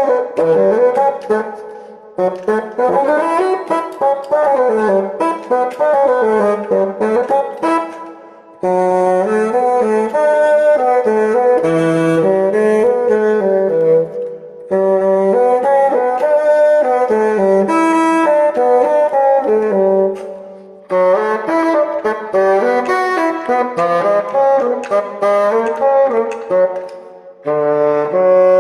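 Solo bassoon playing a melody in phrases: quick runs up and down at first, then longer held notes, with short breaks between phrases. The instrument's keys clack audibly under the notes.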